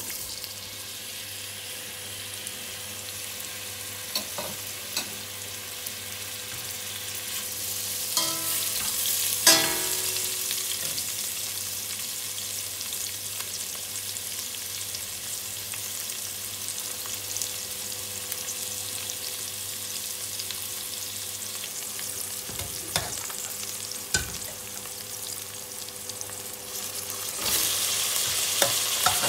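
Sliced onions sizzling as they fry in hot oil in a stainless steel pot, with a few knocks from stirring. Near the end the sizzle gets suddenly louder as pieces of meat are added.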